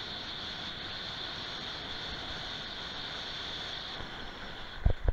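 Skis sliding over packed snow at speed, a steady hiss mixed with wind rushing over the microphone. It eases about four seconds in, and two short low thuds follow near the end.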